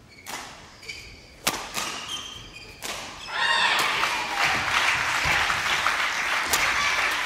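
Badminton rally: sharp racket strikes on the shuttlecock about every second and a half, with short shoe squeaks on the court floor. From about three seconds in, a loud, steady crowd noise rises and carries on over the play.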